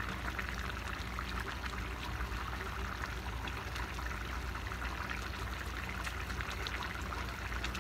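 Chicken stew in tomato sauce simmering in a pan on a gas burner, bubbling and popping with fine steady crackles over a low hum.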